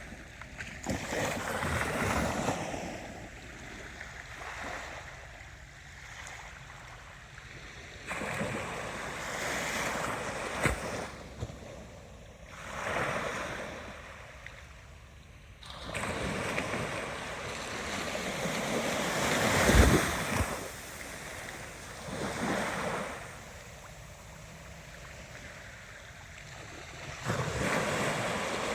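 Ocean waves breaking and washing in, in surges that swell and fade every few seconds, the strongest about two-thirds of the way through.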